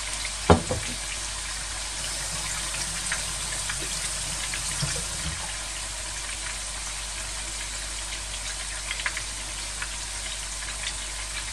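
Raw minced-meat meatballs sizzling in hot oil in a frying pan: a steady hiss with scattered small pops and crackles. A single sharp knock about half a second in.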